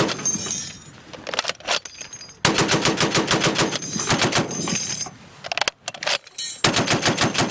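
.50-calibre heavy machine gun firing: a short burst at the start, a few single shots, then a long rapid burst of nearly three seconds from about two and a half seconds in, two more shots, and another rapid burst near the end.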